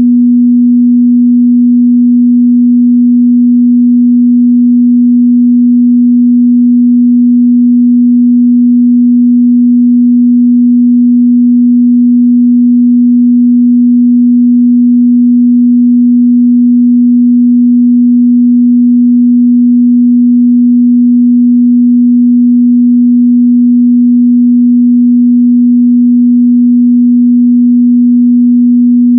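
Steady 243 Hz sine-wave test tone: one pure, unchanging mid-bass hum, held loud and constant.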